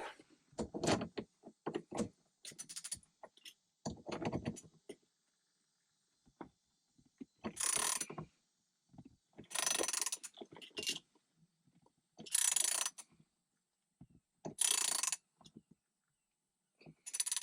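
Mechanical clicks and knocks, then five rasping, ratchet-like strokes about two seconds apart, as the threaded shift knob and extension are turned down tighter onto the shift lever.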